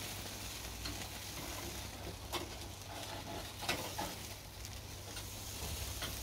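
Burgers and chicken sizzling on a barbecue grill, with a few sharp pops and crackles from the fat.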